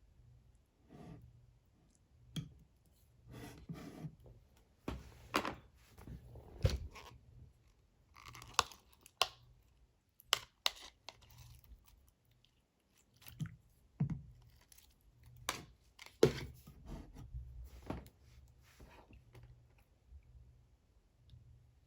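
Clear slime being squished and pulled by hand, giving irregular quiet sticky clicks, pops and wet crackles.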